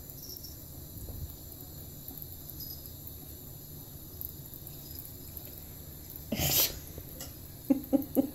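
Bathroom faucet running a thin trickle into the sink, a steady soft hiss. About six and a half seconds in there is a brief loud rustle, and near the end a quick run of soft knocks.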